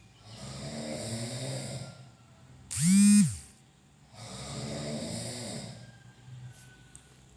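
Person snoring in two long, noisy breaths. Between them, about three seconds in, comes a short, much louder pitched vocal sound that rises and falls in pitch.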